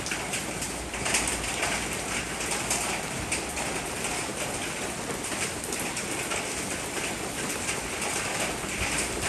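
Steady rain falling, a continuous hiss full of fine pattering drops, with a bird calling as well.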